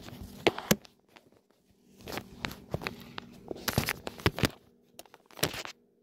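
A phone being handled right at its microphone while it is picked up and set in position: irregular knocks, taps and rustles of fingers and clothing, in bursts with short pauses between.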